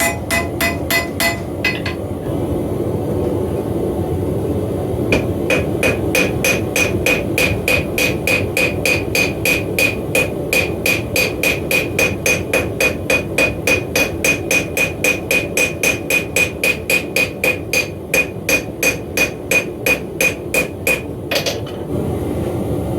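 Hand hammer striking a hot mild-steel axe head on an anvil, drawing out the blade, about three ringing blows a second. A few blows open, a pause follows, then a long steady run of blows that stops near the end, over a steady low rush.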